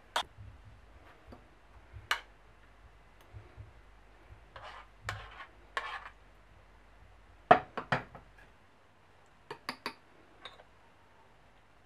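A metal spoon knocking and scraping against a metal saucepan and a ceramic bowl as thick soup is spooned out, in scattered clinks and knocks with short pauses between them. The loudest pair comes about seven and a half seconds in, with a few lighter taps near the end.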